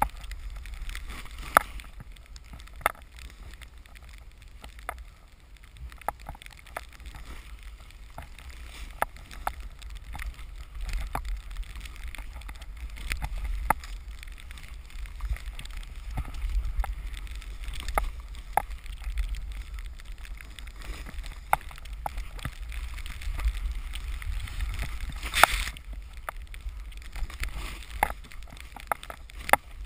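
Snowboard riding through deep powder, heard through a camera housing mounted on the board: a steady low rumble with frequent sharp ticks and knocks as snow and the board jolt against the housing. A louder swish of snow comes near the end.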